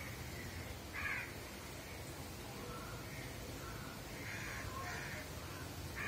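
Urad dal vadas sizzling steadily as they deep-fry in a pan of hot oil, with a bird calling several short times over it, loudest about a second in.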